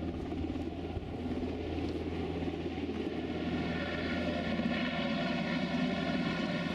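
Rescue helicopter hovering, its rotor and turbine engines running with a steady drone that grows louder, a whine coming in about halfway through.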